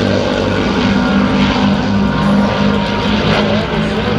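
P-51 Mustang fighters in flight, their Packard Merlin V-12 piston engines and propellers making a loud, steady drone.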